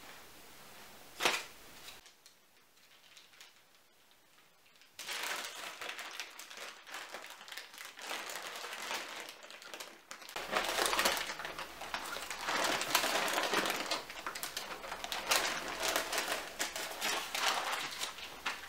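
Baking parchment crinkling and rustling under the hands as a cream-filled sponge sheet is rolled up in it, louder and more crackly from about ten seconds in. A single sharp tap comes about a second in.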